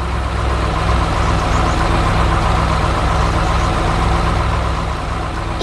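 A heavy vehicle's engine running steadily, a low engine note with a hiss above it.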